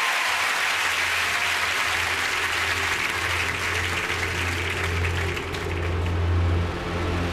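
Studio audience applauding, thinning out over the last couple of seconds. From about half a second in, a steady low drone from the band's stage gear rises underneath and becomes the loudest thing by the end.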